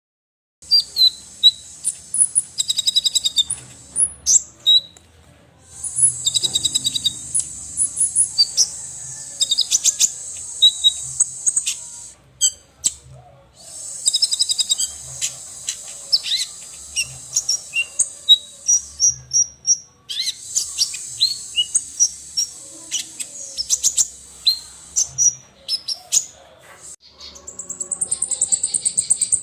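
Small songbirds singing in long bursts of rapid, high-pitched chirps and trills over a dense high buzzing trill, with short pauses between bursts.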